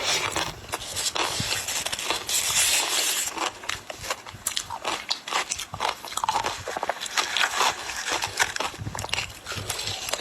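Ice being bitten and chewed, a dense, irregular run of crisp crunches and cracks.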